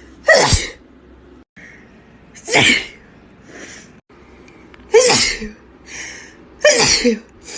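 A girl sneezing: four sharp, loud sneezes about two seconds apart, each with a voiced cry that falls in pitch, and short quieter sounds between them.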